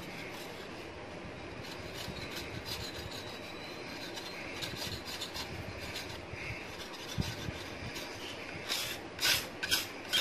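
A knife blade scraping along the blackened rod of a Canon imageRUNNER 2525 copier, cleaning the dirt off it as a cure for repeated paper jams. A run of light scraping strokes, with several louder strokes near the end.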